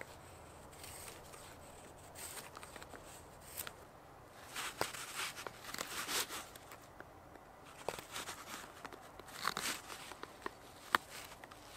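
Blades shaving wood by hand: a few faint drawknife strokes along a wooden saw-frame pole, then a knife whittling a small piece of wood in a run of short, scratchy slicing strokes that peel off curled shavings, with a few sharp clicks near the end.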